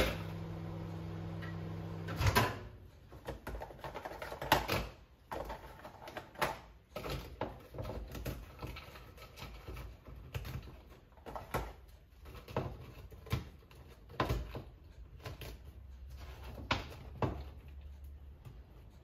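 A microwave oven hums steadily while it runs, then stops about two seconds in with a knock. After that come irregular knocks, snaps and clatter as hard, crisp biscuits are broken by hand and dropped into a blender jar.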